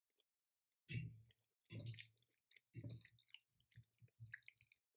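A person chewing a mouthful of pasta: faint, wet chewing sounds coming about once a second.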